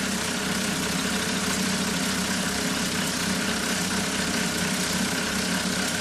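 Several small school-made model steam engines running together under steam, a steady, continuous hiss with a fast mechanical whirr.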